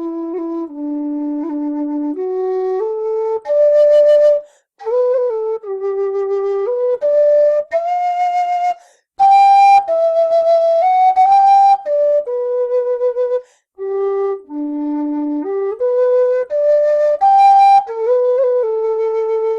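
Setanta metal low D whistle playing a slow stepwise melody, dipping to its bottom notes and climbing into higher notes around the middle, with short gaps about 5, 9 and 14 seconds in.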